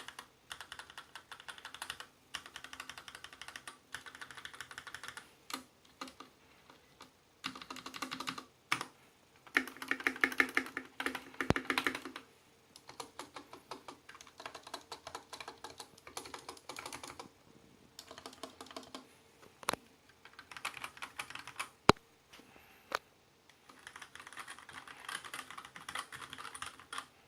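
Typing on a Varmilo VB87M tenkeyless mechanical keyboard with Gateron Clear linear switches: runs of fast keystrokes lasting a second or two, broken by short pauses. A few single, sharper key strikes stand out between the runs.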